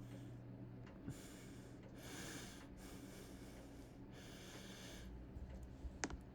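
Four short hissing breaths close to the microphone, one after another, over the faint steady hum of running ceiling fans.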